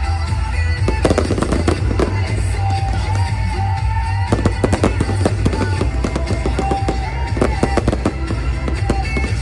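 Aerial fireworks and firecrackers crackling and popping in rapid, irregular succession, over loud music with a wavering melody line.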